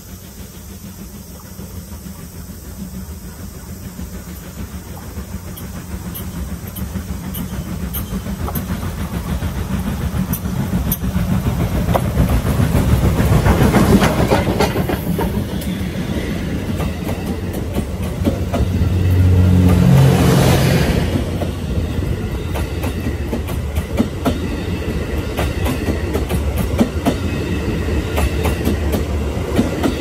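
Steam locomotive approaching and passing close by at rail level, building to a peak about fourteen seconds in. Passenger coaches then roll past with a steady clickety-clack of wheels over the rail joints, swelling louder with a low hum around twenty seconds.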